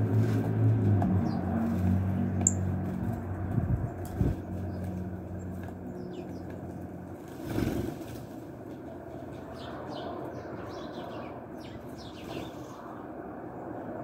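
Small birds' wings flapping as they fly off the ledge, with faint, short, high chirps. Under them a low engine hum fades away over the first few seconds.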